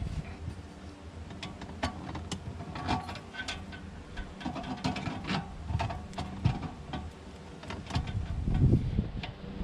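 Metal pliers clicking and scraping against a threaded coaxial cable connector as it is tightened at the base of an antenna: irregular small metallic clicks, with a dull low bump of handling about eight and a half seconds in.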